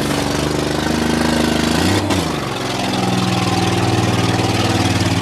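Several demolition derby car engines running loudly, with a brief change in engine pitch about two seconds in.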